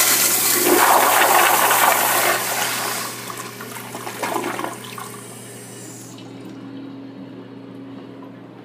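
Flushometer flush of a Crane Plumbing Hymont toilet: a loud rush of water through the bowl that eases off after about three seconds and dies down, leaving a faint steady hum near the end.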